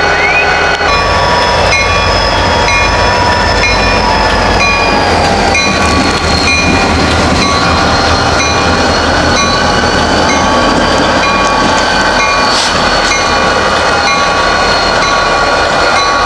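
Union Pacific SD40N diesel locomotives running, their turbocharged EMD 645 engines giving a steady deep rumble. Several high whining tones sit over it and drift slowly up and down in pitch.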